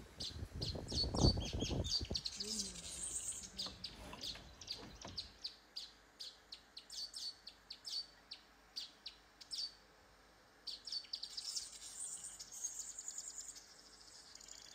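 Small birds chirping: short high chirps repeated many times, with a busier stretch near the end. In the first few seconds a low rumbling noise lies underneath, loudest about a second in.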